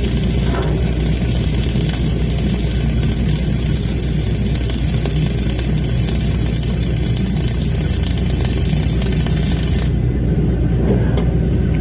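An engine running steadily, with a loud, even hiss over it that cuts off suddenly about ten seconds in.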